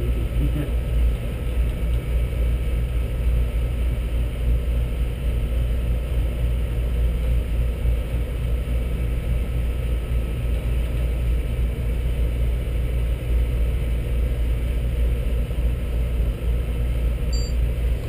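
Steady rush of air and low machinery rumble from a 7.5-ton Carrier air handler, its blower drawing air through the return grille. The blower is moving only about 1,600 CFM of the 3,000 CFM the unit needs, just over half the required airflow.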